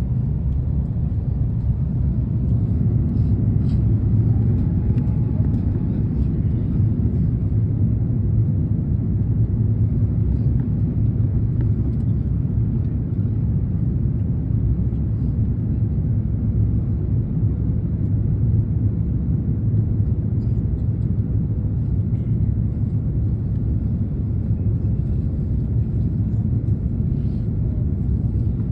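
Airliner cabin noise of an Airbus A330-900neo on approach: a steady low rumble of airflow and its Rolls-Royce Trent 7000 engines, heard from a window seat.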